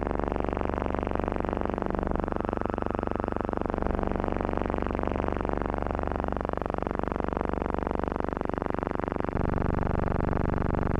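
A bus engine running steadily with a rapid, even pulse. Its low rumble grows louder about nine seconds in.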